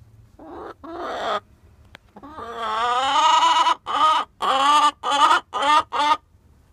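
A hen calling loudly: two short squawks, then a long drawn-out call that rises and falls, then five quick short squawks about two a second. It is the fussing of a hen ready to lay that is kept from the nest box she wants.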